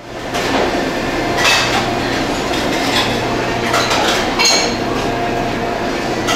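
Restaurant kitchen sounds: irregular clatter and clinks of metal pans and utensils over a steady low equipment hum.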